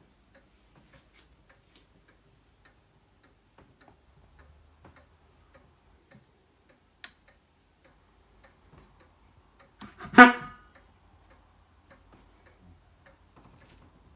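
A car horn honks once, briefly, about ten seconds in: a single pitched blast. Faint ticking runs underneath, and a single sharp click comes about seven seconds in.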